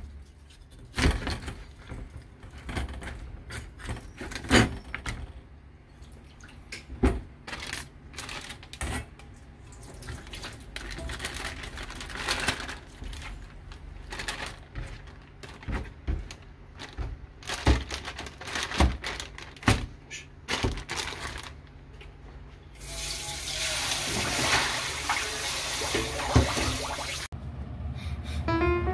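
Kitchen work: scattered knocks and clicks, then a tap running into a sink for about four seconds near the end.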